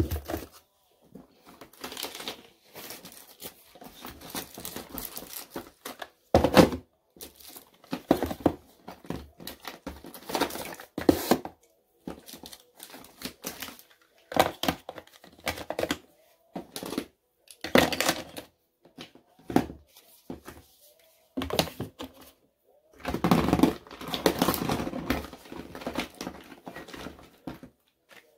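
Boxed makeup products and palettes being set down and stood up in a drawer: irregular knocks, taps and packaging rustles, with a longer stretch of rummaging and crinkling about 23 seconds in.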